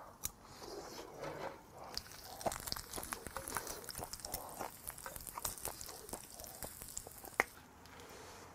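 Close-miked chewing of grilled beef large intestine (daechang), with many light clicks of metal tongs against the frying pan and one sharper click near the end.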